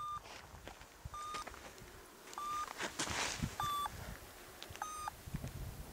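Paragliding variometer beeping: five short, fairly high beeps about a second and a bit apart, their pitch shifting slightly from beep to beep. A short rush of wind noise comes about halfway through.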